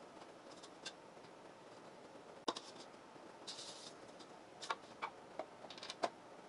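Scattered light clicks and taps of hard plastic as a 3D-printed antenna cover and base plate are handled and pressed together, the sharpest click about two and a half seconds in and a quick cluster near the end, with a short rustle a little past halfway.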